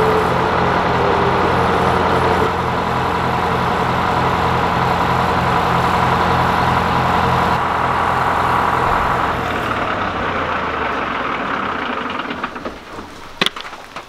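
The sawmill's Detroit Diesel power unit running steadily with a regular low pulsing. About ten seconds in it slows and winds down, its pitch falling as the mill is shut off.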